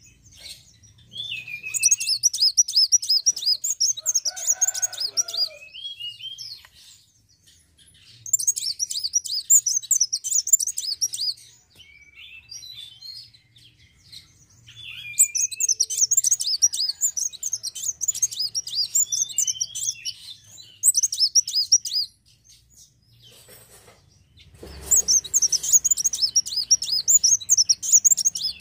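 A caged sunbird singing in four bouts of fast, high, twittering notes, each several seconds long with short pauses between. About four seconds in, a brief lower, warbling call is heard.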